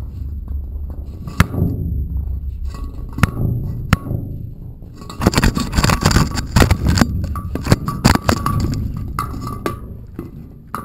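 Camera knocking and scraping against the rough stone walls of a well shaft as it swings down inside, over a low rumbling handling noise. Irregular sharp knocks, with a dense flurry of them from about five to eight seconds in.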